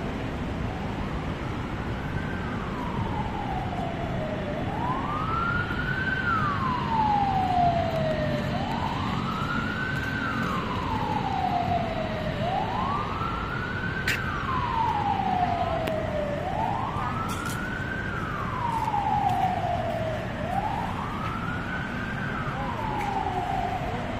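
A siren wailing in slow repeated cycles, each rising quickly and falling away more slowly, about one cycle every four seconds, over a steady low background rumble.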